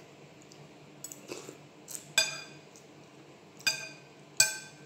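Metal spoon clinking against a ceramic bowl: three ringing clinks, about two, three and a half and four and a half seconds in, the last the loudest, with a few lighter taps before them.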